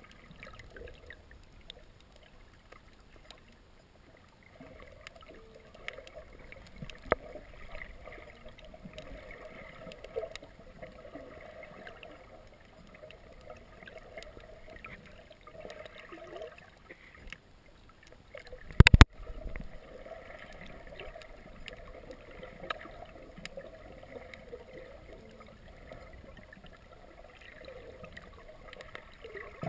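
Underwater ambience picked up by a submerged camera: a steady low rush of water noise with scattered sharp clicks, and one loud double knock about two-thirds of the way through.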